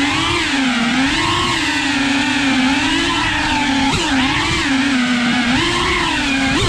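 FPV drone's electric motors and propellers whining, the pitch rising and falling over and over as the throttle changes.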